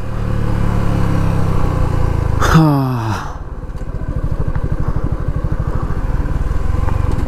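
Suzuki V-Strom SX 250's single-cylinder engine running steadily. About two and a half seconds in, the revs fall away and it settles into a low, even chug as the bike rolls slowly onto a dirt track.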